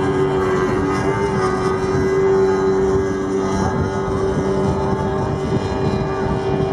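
Racing powerboat engines running flat out, a steady held note with several overtones over a constant rush.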